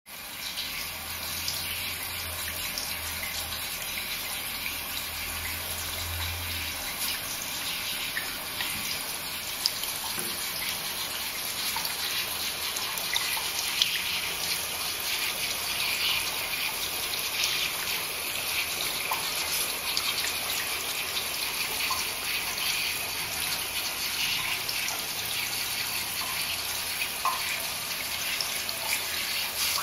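Tap water running steadily into a bath, a constant hiss.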